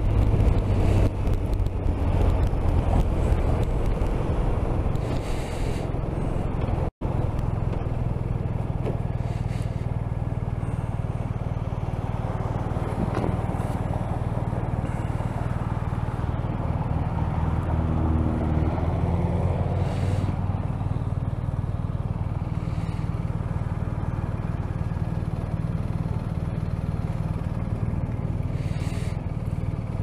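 BMW R 1250 RT's boxer-twin engine running on the move and then idling steadily with the bike stopped at a traffic light. The sound cuts out for an instant about seven seconds in.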